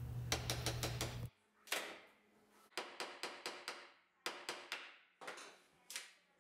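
A run of sharp knocks and taps on wood, coming in quick clusters of several strikes each, from working at a dresser base that is still stuck on.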